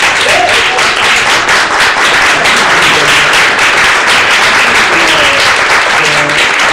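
Audience applauding: a room full of people clapping, dense and steady throughout.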